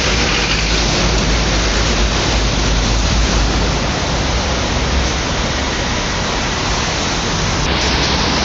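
Steady roar of fast road traffic, with a deep wind rumble on the microphone.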